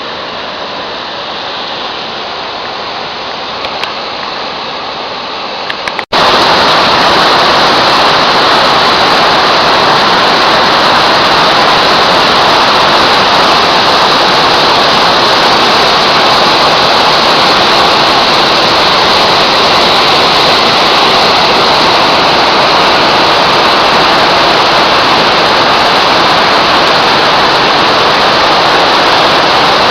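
Waterfall rushing steadily. About six seconds in the sound cuts briefly, then comes back much louder and brighter and holds steady.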